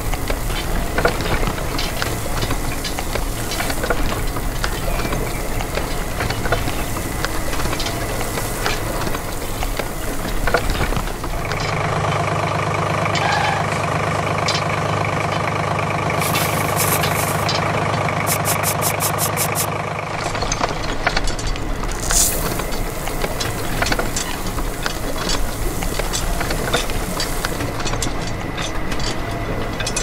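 An engine idles with a rapid, irregular rattle of clicks. About twelve seconds in, a smoother, steady engine hum takes over for roughly nine seconds, and then the rattling idle returns.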